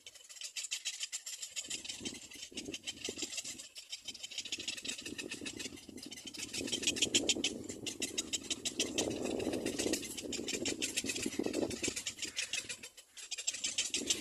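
Rapid rattling chatter, rising and falling in bursts, typical of cormorant chicks begging at the nest.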